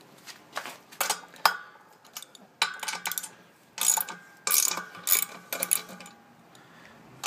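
Screws being undone from an electric apple crusher's cover with a hand tool: irregular short bursts of metal clicking and scraping.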